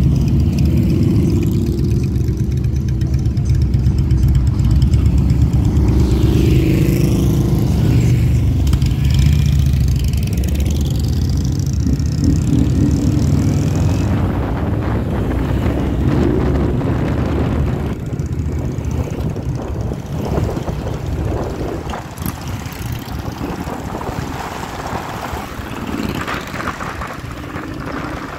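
Motorcycle engines running at low street speed in a slow procession of bikes. The low engine sound is strongest in the first half and fades gradually through the second half.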